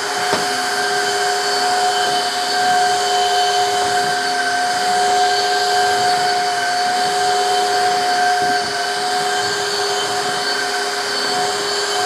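Shark HydroVac and Tineco Floor ONE S3 cordless wet-dry vacuum mops running over a wet tile floor, a steady high motor whine over the rush of suction.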